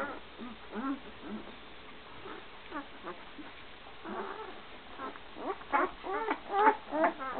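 Litter of one-week-old Great Dane puppies squeaking and whining in short rising-and-falling cries, a few at a time at first, then many overlapping from about five seconds in.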